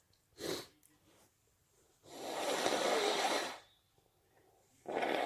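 A person breathing noisily through the nose amid allergy sneezing. There is a short puff of air about half a second in, then a long rush of breath lasting about a second and a half from about two seconds in, and another beginning near the end.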